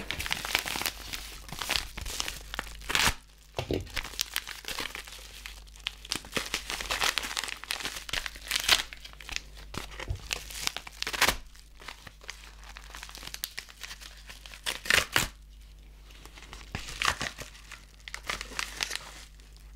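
Mailing bags crinkling and tearing as they are handled and pulled open by hand: irregular rustling crackles with a few sharper rips.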